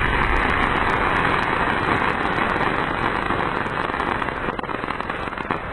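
Crackling stars of a Supreme Fireworks sky shot after it bursts overhead: a dense, continuous crackle of many tiny pops, like heavy rain on a surface, slowly fading toward the end.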